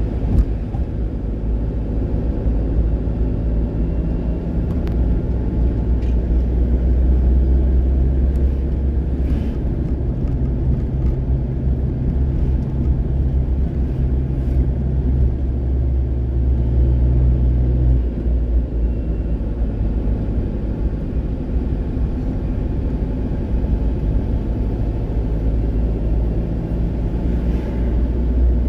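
Engine and road noise of a moving vehicle heard from inside its cab: a steady low rumble with an engine hum that shifts in pitch about ten seconds in and fades out a little before the middle.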